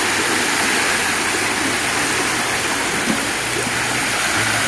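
Steady rushing of flowing water, a stream running over rocks.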